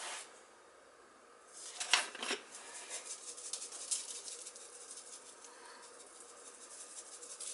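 Faint crackling and rustling as seasoning is shaken and sprinkled by hand over breaded pork chops on a foil-lined baking sheet, with two light clicks about two seconds in.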